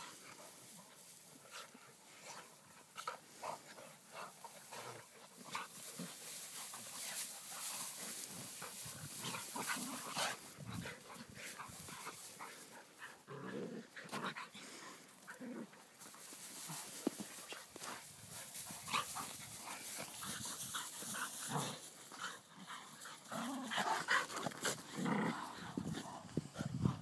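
Several dogs play-fighting, scuffling through hay and over dirt with short dog vocal noises mixed in. Louder flurries come about halfway through and again near the end.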